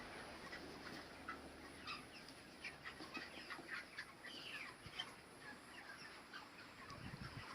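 A shed full of broiler chickens chirping and clucking softly, many short overlapping calls.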